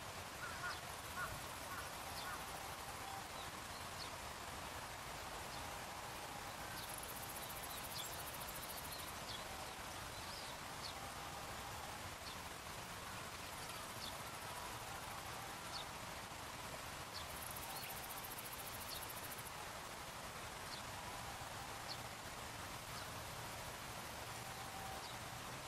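Outdoor field ambience: a steady faint hiss with scattered short, high chirps from small animals, and twice a high buzzing trill lasting about two seconds.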